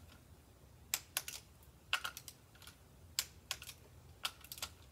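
Ratchet wrench clicking in short runs of a few clicks each, with pauses between, as a bolt is turned.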